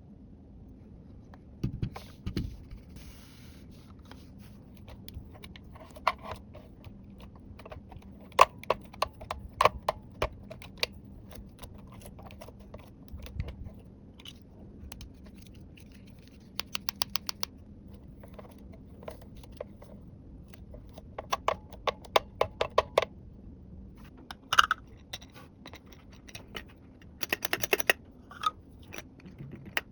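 Small plastic toy pieces handled and set down: scattered sharp clicks and taps, with a few quick runs of rapid clicking, about two thirds of the way through and near the end.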